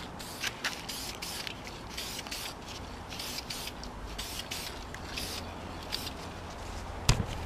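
Aerosol spray can of primer spraying in many short hissing bursts onto a spinning motorcycle wheel, laying a light coat. One sharp click comes near the end.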